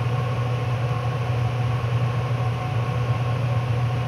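Steady low-pitched hum with faint higher tones above it, unchanging throughout, with no separate sounds on top.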